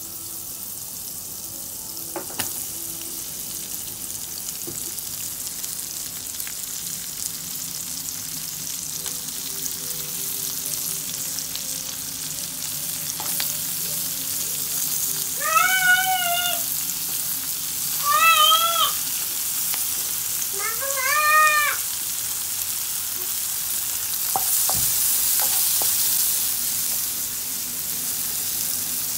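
Hot fat sizzling in a nonstick pan, then sliced onions frying in it and stirred with a wooden spatula, with occasional taps of the spatula; the sizzle grows louder as it goes on. In the middle a cat meows three times, about two and a half seconds apart, louder than the frying.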